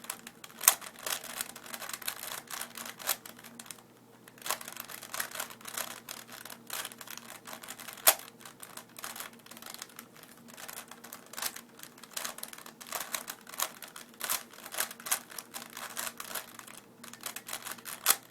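4x4 Rubik's Cube being turned fast by hand: rapid, irregular plastic clicking and clacking of the layers, with a brief pause about four seconds in.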